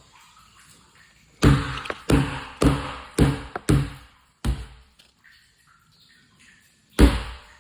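A series of hollow knocks with a short ringing tail: six in about three seconds, then a single louder one near the end.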